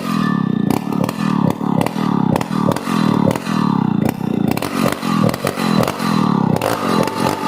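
Chainsaw running under load as it cuts into an ironwood trunk, the engine speed rising and falling over and over, with clattering from the chain.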